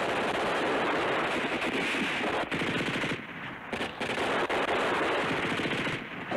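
Rapid, sustained machine-gun fire, with short lulls about three seconds in and near the end.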